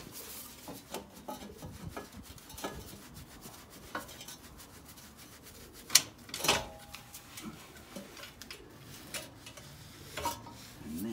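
Metal clinks, knocks and rubbing as the exhaust pipes and catalytic converter are handled and worked loose. There are scattered light clicks throughout, and two sharp clanks about six seconds in, the second ringing briefly.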